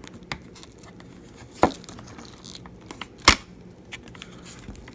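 Small crackles and ticks of an iPhone 7 Plus battery's adhesive pull strip being worked loose and peeled from under the battery, with two sharper clicks about a second and a half and about three seconds in.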